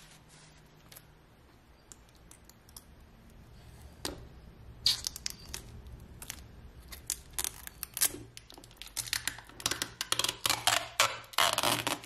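Plastic protective film being peeled off a new iPod Classic's front and back housing: irregular crinkling and crackling that starts about four seconds in and grows busier in the last few seconds.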